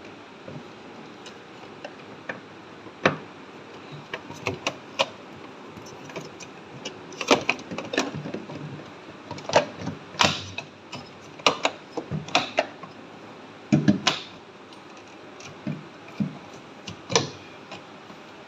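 Scattered sharp clicks and knocks of things being handled over a steady background noise, coming thickest in the middle.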